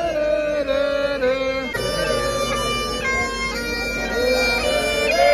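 Bagpipes playing a tune, the melody notes changing over a steady held drone.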